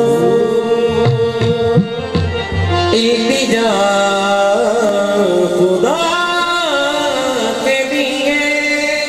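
Qawwali music: harmoniums playing with a male voice singing long, gliding notes, and a few hand-drum strokes in the first few seconds.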